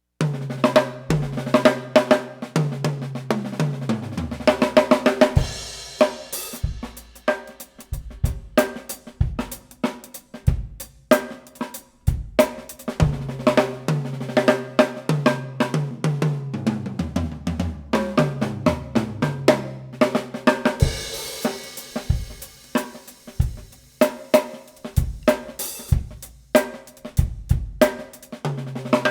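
Drum kit played solo with a 12x7-inch snare drum: grooves on snare, bass drum and hi-hat, with tom fills stepping down in pitch across the 8, 10, 12 and 14-inch toms. This happens twice, each fill ending in a cymbal crash.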